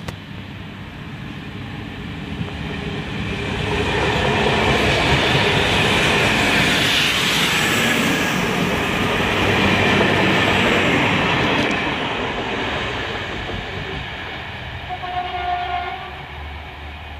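Passenger train passing close by: the noise of wheels on the rails builds as it approaches, stays loud while the coaches go past, then fades as it pulls away. Near the end a train horn sounds.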